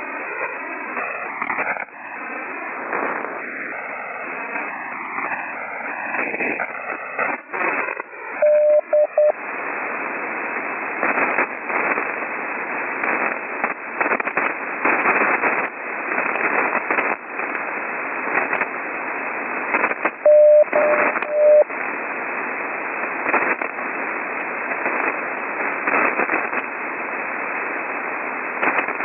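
Heavy HF radio static with frequent crashes, heard through a receiver's narrow passband; the rough conditions come from a lightning storm. Short, slow bursts of a Morse code tone cut through the static about eight seconds in and again about twenty seconds in.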